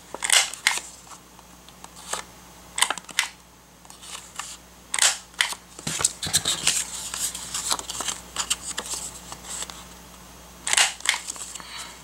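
Kadomaru Pro corner-rounder punch clicking as it cuts the corners off a sheet of paper, short sharp snaps mostly in pairs, with paper rustling and shuffling between cuts.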